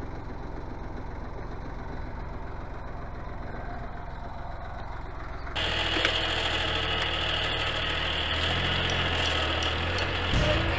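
Fordson Dexta tractor's three-cylinder diesel engine running steadily. About five and a half seconds in, the sound abruptly becomes louder and fuller, and stays that way.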